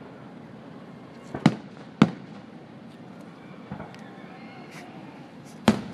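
Aerial firework shells bursting with sharp bangs: a quick double bang about a second and a half in, a louder one half a second later, a faint one near four seconds, and another sharp bang near the end.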